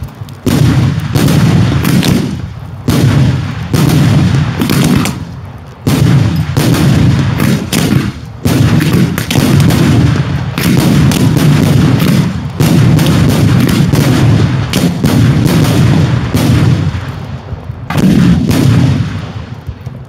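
Daylight fireworks fired from ground batteries: a dense barrage of loud explosions, bang after bang, with only short lulls between clusters. The barrage thins out near the end.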